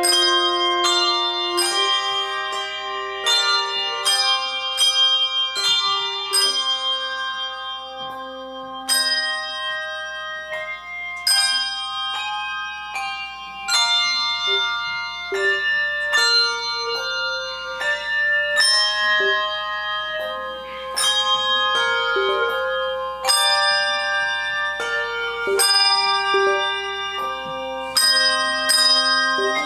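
Handbell choir playing a piece: bells struck in chords and melody lines, each note ringing on after it is struck.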